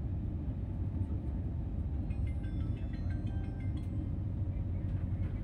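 Steady low rumble of a high-speed EMU passenger train running, heard from inside the carriage, with a scatter of faint short high tones from about two to four seconds in.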